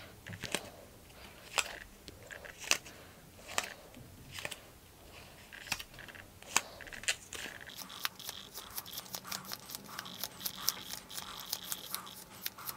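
Stack of cardboard game cards being leafed through one at a time, each card snapping off the next with a sharp click. The clicks come about once a second at first, then several a second over the last few seconds.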